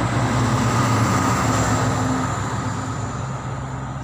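A running engine's steady low drone with a hum in it, fading a little toward the end.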